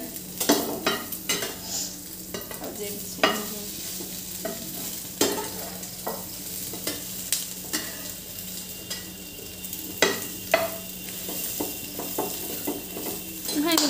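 Egg sizzling as it fries in a frying pan, with a metal spatula scraping and tapping against the pan as the pieces are turned over. A steady sizzle runs under irregular scrapes and clicks, the sharpest a little past five seconds in and around ten seconds in.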